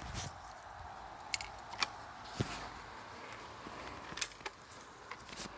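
Low background noise with a few faint, scattered clicks and light rustles, typical of someone handling gear.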